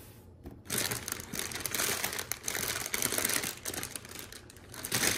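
Plastic Lego parts bags crinkling as they are handled and rummaged through. The crinkling starts about a second in and goes on steadily, with small clicks of loose pieces mixed in.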